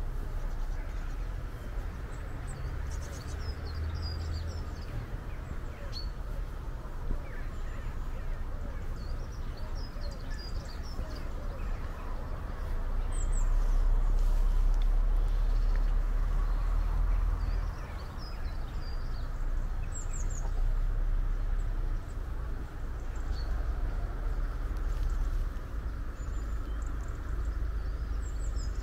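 Small birds chirping in short high calls over steady outdoor ambience, with a low rumble underneath that swells for a few seconds midway.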